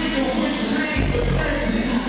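Hip-hop music played loud over a club sound system at a live rap show, with a deep bass line that changes note about every second.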